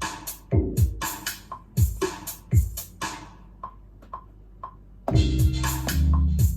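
Electro house beat played on a Native Instruments Maschine: kick drums falling in pitch with hi-hats, thinning to sparse light ticks about three seconds in, then coming back about five seconds in with a loud held bass line.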